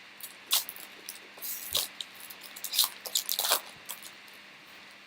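Trading cards and their packs being handled: a handful of short, crisp rustles and card swishes about a second apart.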